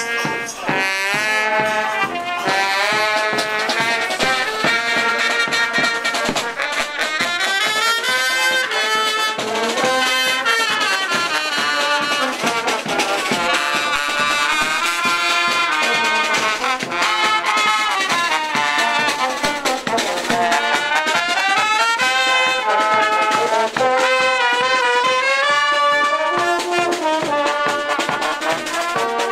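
Marching brass band playing a lively tune: trombones, trumpets and a tuba over a steady beat.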